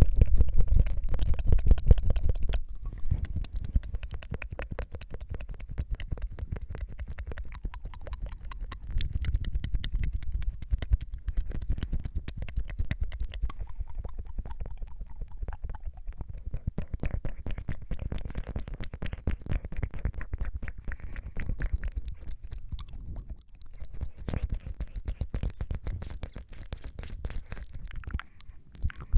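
Close-miked ASMR mouth sounds: rapid tongue fluttering, a dense stream of tiny wet clicks, louder for the first two or three seconds.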